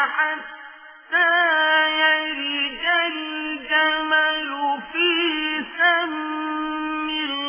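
A solo voice chanting Quran recitation in a drawn-out melodic style, holding long notes with wavering ornamental turns. The voice breaks off briefly about a second in, then goes on.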